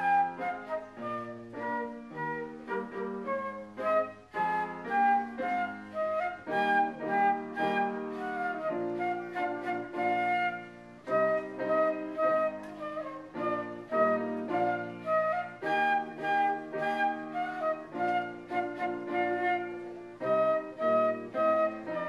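Flute playing a melody over grand piano accompaniment, a stream of separate notes over steady chords.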